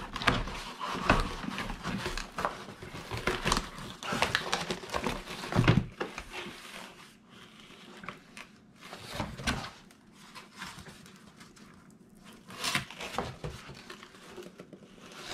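Cardboard packaging rustling, scraping and crinkling as metal detector parts are lifted and pulled out of their box, in irregular bursts with small knocks, busiest in the first half and again near the end.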